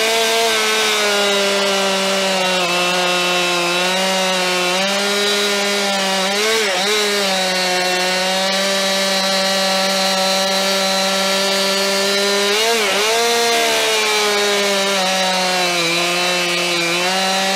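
Stihl MS 261 C single-cylinder two-stroke petrol chainsaw cutting through a log at full throttle. The engine note holds steady under load and wavers briefly between cuts, around six and thirteen seconds in.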